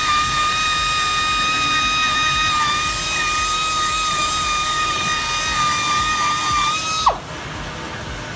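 Flux-cored arc welding: a steady hissing arc with a high-pitched whine. It stops abruptly about seven seconds in, the whine dropping quickly in pitch as it cuts out.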